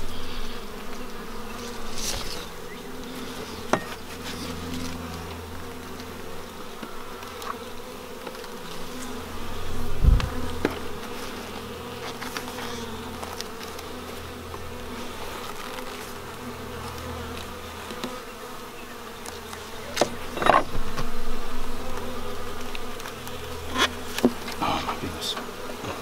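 A swarm of honeybees buzzing steadily around an open hive, a continuous droning hum. A few short knocks break through it, the loudest a low thump about ten seconds in.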